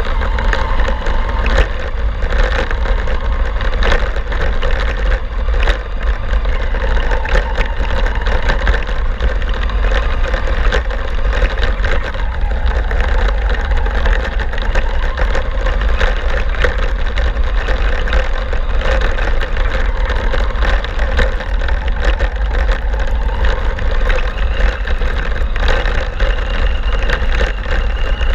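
Onboard sound of a battery-powered RC truck driving across beach sand: continuous motor and drivetrain noise with a crackle of small rattles and clicks, and heavy low rumble from wind on the truck-mounted camera's microphone. A thin steady high whine comes in near the end.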